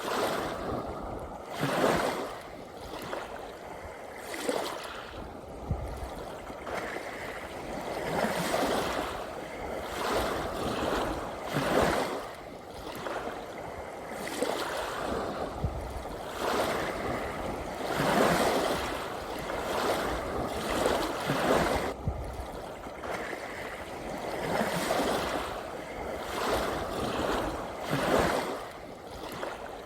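Small sea waves lapping and splashing in a steady run of surges, a new one every second or two.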